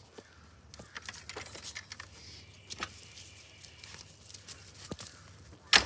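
Scattered light clicks, knocks and rustles, with one sharp, louder knock near the end.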